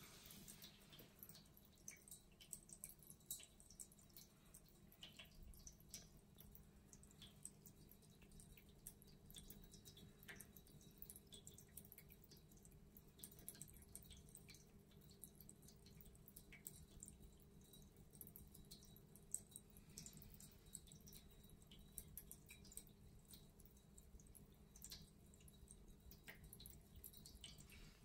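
Faint trickling and dripping of a stainless steel pet water fountain, its thin streams of water falling into the bowl, with a faint steady hum beneath.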